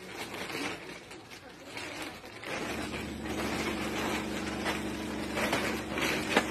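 Background street noise, then about two and a half seconds in a steady low engine hum sets in, as of a motor vehicle idling.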